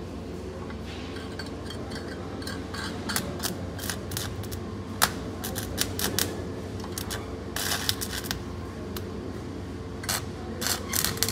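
Stick (shielded metal arc) welding arc on steel plate crackling and popping in irregular bursts, starting about two seconds in and coming thickest near the end, over a steady low electrical hum.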